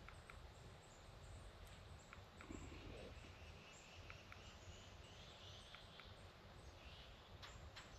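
Near silence: faint outdoor woodland ambience, with a few soft scattered ticks and a faint low rumble.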